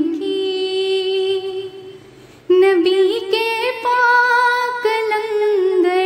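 A woman singing a naat, an Urdu devotional poem in praise of the Prophet. She holds one long note for nearly two seconds and breaks off briefly, then picks up again with phrases whose pitch bends up and down.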